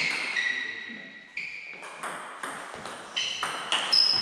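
Table tennis rally: the ball is struck by the bats and bounces on the table, making a quick run of sharp clicks. Several are followed by a short ringing ping, and the loudest hit comes near the end.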